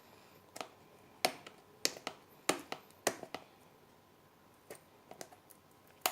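A series of sharp clicks and taps from hands handling and trying to open a product's packaging box, about every half-second at first, then sparser.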